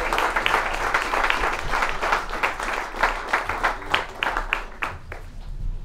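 Small audience applauding, the dense clapping thinning to a few scattered claps and dying away near the end.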